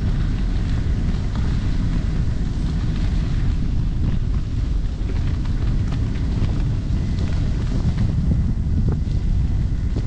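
Wind buffeting the microphone of a handlebar-mounted GoPro while riding a bicycle along a gravel path: a steady low rumble, with a few faint ticks.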